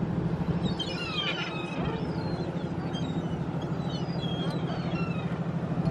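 A flock of seagulls calling in short, high cries over a boat's engine, which runs with a steady low hum. The cries are thickest about a second in, then come more sparsely.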